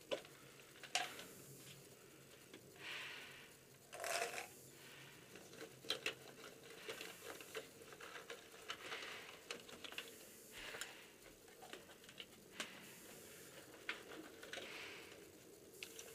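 Faint scattered ticks and soft rustles, like small handling noises of gear and clothing, against quiet room tone inside a small wooden hut.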